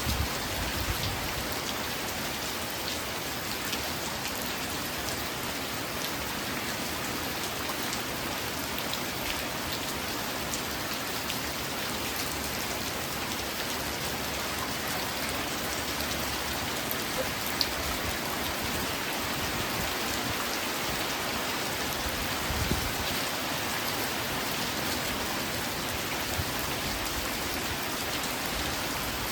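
Steady rain falling, with individual drops ticking on a surface, and a couple of brief dull low thumps, one near the start and one about three-quarters through.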